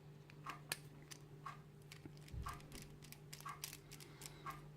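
Faint clock ticking about once a second under a low steady hum, with a few sharper irregular clicks in between.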